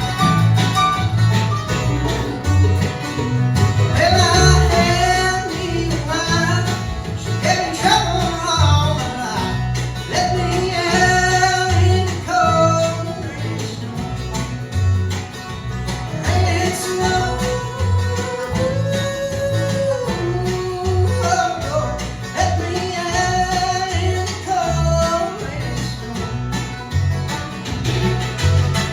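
Live acoustic bluegrass band playing a song: a voice singing over guitar and other plucked strings, with a steady pulsing bass line.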